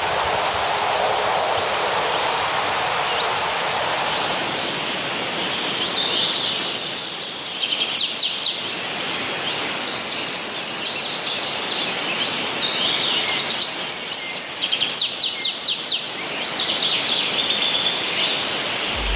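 Small birds chirping in repeated quick runs of high notes over a steady outdoor rushing noise.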